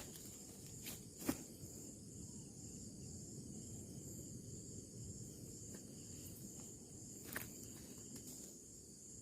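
Insects chirring steadily at a high pitch, with a few short knocks or clicks, the sharpest just over a second in and another near the end.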